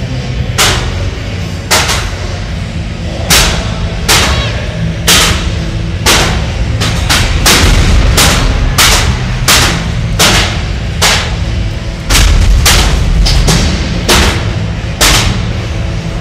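Combat robots colliding: about twenty sharp, loud metal-on-metal impacts, spaced irregularly and coming faster and closer together partway through, over a steady low rumble from the arena.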